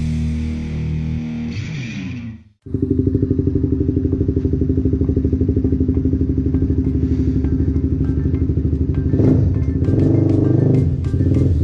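Guitar intro music fades out in the first couple of seconds. Then a Honda CBR150R's single-cylinder engine idles through an Akrapovič aftermarket exhaust with a steady, fast pulse, rising in a couple of short throttle blips near the end.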